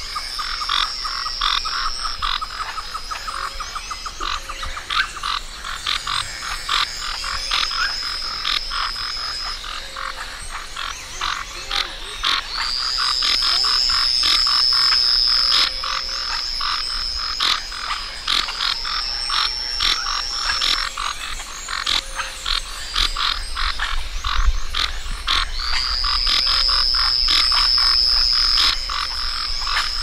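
Frogs calling in a chorus: a dense run of rapid, irregular clicks and short croaks, with a high, steady tone that sets in several times and holds for a few seconds each time.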